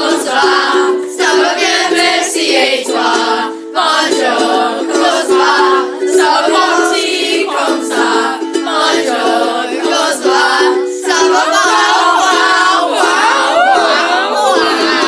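Boys singing a song over instrumental backing music, with a steady repeating chord accompaniment under the voices.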